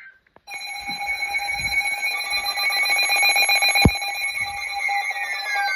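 Emergency Alert System attention tone: a loud, steady electronic alert tone starting about half a second in, the signal that comes before the spoken warning. There is a single sharp knock near the middle, and near the end a second tone slides downward.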